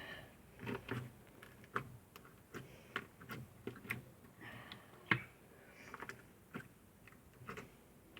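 Faint, irregular small clicks and pops of slime being squeezed and pressed between fingers, a few a second with uneven gaps.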